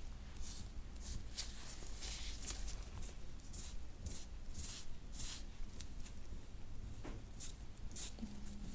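Metal massage scraper drawn across the skin of a person's back in repeated swishing strokes, about one or two a second, during instrument-assisted soft-tissue scraping.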